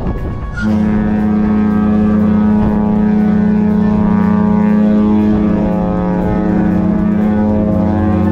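Cruise ship's horn sounding one long, loud, steady blast, starting about half a second in: a low pitched tone rich in overtones.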